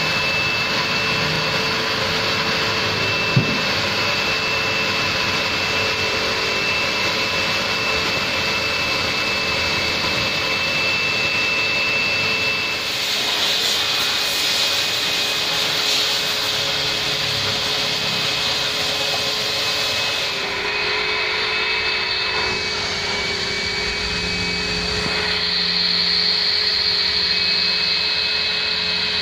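Wet-vac carpet extractor running steadily with a high whine, drawing water through a clear upholstery nozzle worked over fabric seats and carpet. The hiss of suction grows brighter for several seconds around the middle, and there is one sharp click about three seconds in.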